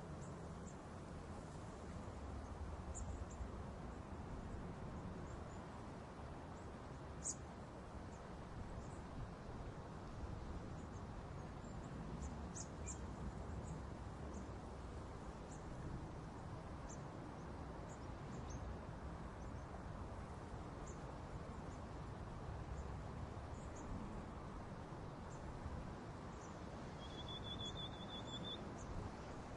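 Steady outdoor background noise with small, high-pitched bird or insect chirps scattered throughout, and a short trilled call near the end.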